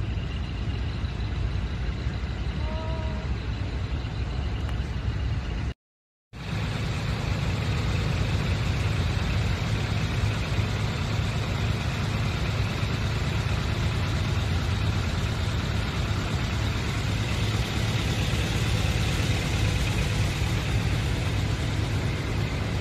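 Large trucks' engines idling steadily, a constant low rumble. The sound cuts out completely for about half a second roughly six seconds in.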